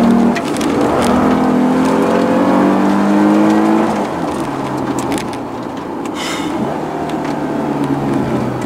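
Lexus GS sedan's engine heard from inside the cabin, pulling hard with its pitch rising for about four seconds, then falling away about four seconds in as the throttle is lifted and holding lower after that.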